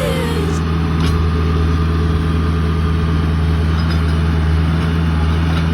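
Vehicle engine running steadily, a low, even drone.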